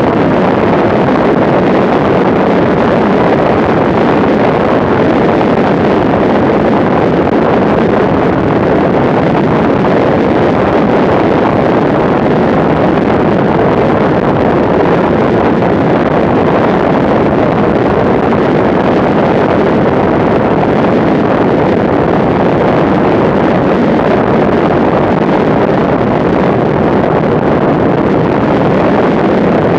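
Steady loud rush of wind noise and engine drone from a Cessna 205 single-engine plane in flight, descending on approach to a runway, heard from a camera mounted outside the plane. The engine is the plane's six-cylinder piston engine.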